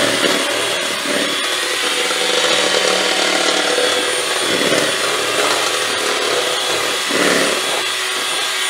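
Shami electric hand mixer running steadily at high speed, its two beaters whipping egg whites in a plastic bowl into a stiff white foam.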